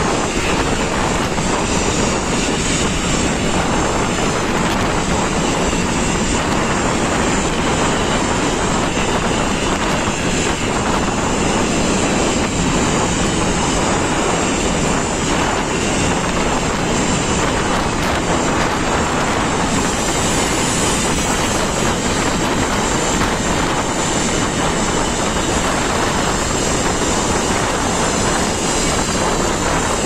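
Steady roar of wind on the microphone mixed with the rush of sea churning along the side of a bulk carrier under way, with no let-up.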